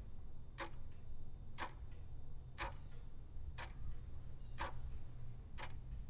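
Clock-tick sound effect of a countdown timer, one sharp tick each second, six in all, over a steady low hum.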